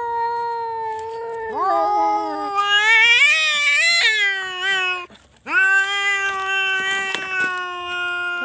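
Domestic cat yowling in long, drawn-out calls. A call already under way rises in pitch and wavers, then breaks off about five seconds in; after a short pause a second long, steady call follows.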